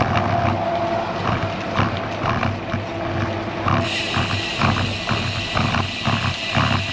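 Wind buffeting the microphone of a bicycle-mounted camera, a steady rumble, over road-bike tyre noise on a concrete bridge path, with irregular knocks as the tyres cross the joints and cracks in the slabs.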